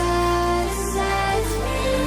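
Background music: a melody over held bass notes, the bass shifting pitch a little past halfway.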